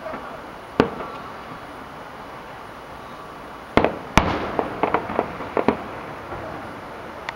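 Aerial fireworks shells bursting. There is one sharp bang about a second in, then two loud bangs just under four seconds in, followed by a quick string of about half a dozen smaller pops.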